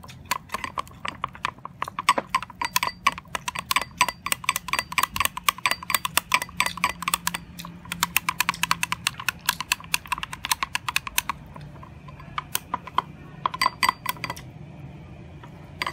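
Chopsticks whisking egg yolk and beer in a clear cup: quick runs of rapid clicking taps against the cup's side, with a slight ring. The tapping breaks off about eleven seconds in and comes back in a short burst near the end.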